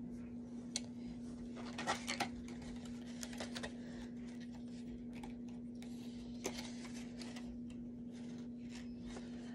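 Clothes dryer giving off a steady low hum, with scattered clicks and plastic crinkling as a small figure is taken out of its plastic bag.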